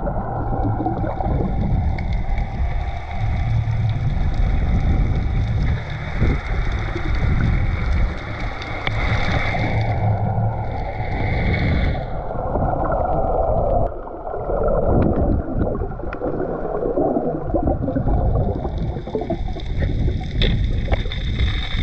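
Muffled underwater rush and rumble of moving water picked up by a submerged action camera, with a faint steady high whine that drops out for a few seconds in the middle and a scattering of faint clicks.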